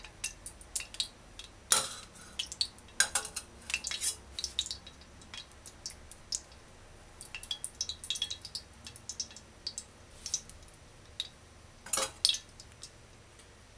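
Metal ladle clinking and scraping against a stainless steel skillet while spreading cooking oil around the pan, in irregular sharp clinks. The loudest clanks come a couple of seconds in and about twelve seconds in, when the ladle goes back into a small pot.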